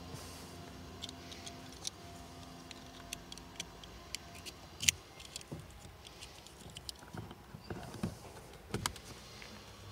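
Small plastic clicks and ticks of a multi-pin wiring connector being handled and pushed into a car door's control module, with a sharper click about five seconds in and two more near the end.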